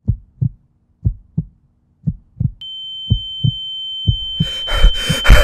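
Heartbeat sound effect: low double thumps, about one beat a second. About two and a half seconds in, a steady high-pitched ringing tone joins it, and near the end a louder, rougher noise takes over.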